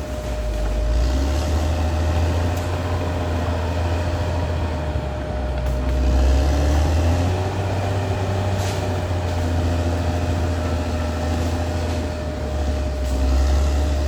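Caterpillar D6R XL bulldozer's diesel engine running with a steady low rumble, its note shifting slightly a couple of times.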